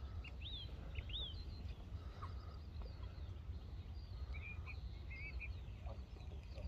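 Small birds chirping, short quick whistled calls scattered throughout, over a steady low background rumble.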